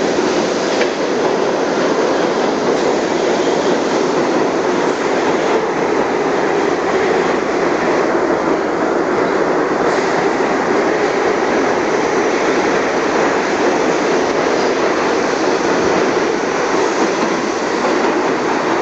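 New York City subway train running along the platform, its wheels on the rails making a loud, steady noise with a faint clickety-clack.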